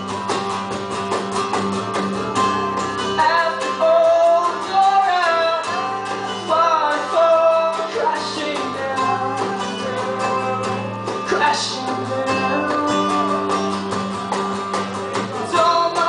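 Live acoustic performance of a song: strummed acoustic guitar chords under a sung melody line that wavers and bends.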